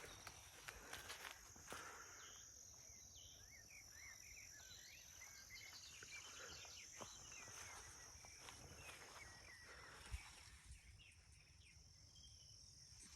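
Faint woodland ambience: a steady high insect drone, with many short chirps from about two seconds in until about ten seconds.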